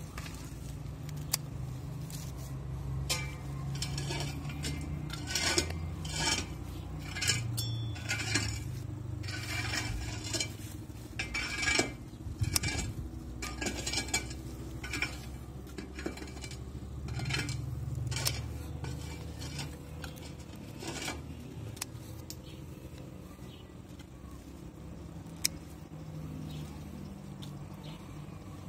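Scissors snipping through radish leaves and stems: a long run of crisp metallic snips that thins out near the end, over a low steady hum.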